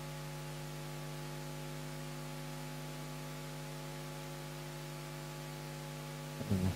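Steady electrical hum with a stack of even overtones, unchanging in level, with a brief low sound near the end.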